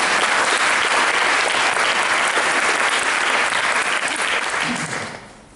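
Audience applauding: a dense spell of clapping that dies away near the end.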